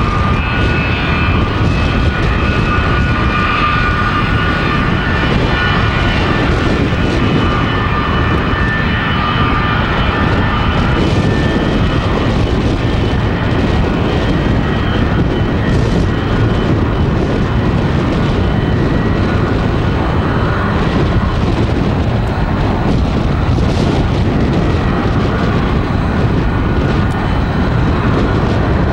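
Boeing 737-200's Pratt & Whitney JT8D turbofan engines running at taxi power: a steady jet rumble with a high whine that fades about eleven seconds in as the airliner turns side-on.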